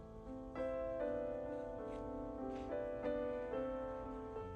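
Background music: a piano melody of held notes.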